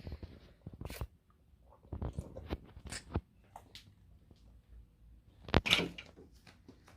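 A child eating: scattered crunching and small clicks and taps, with one sharper knock about five and a half seconds in.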